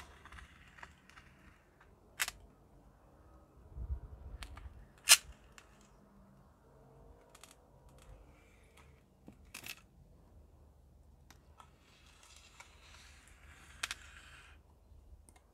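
Handling noise from a hand-held phone and a hand on the planter: scattered sharp clicks and taps, the loudest about five seconds in, with a low bump near four seconds and faint rustling near the end.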